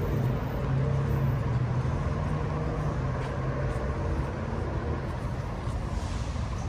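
Steady low rumble of road traffic from an adjacent freeway.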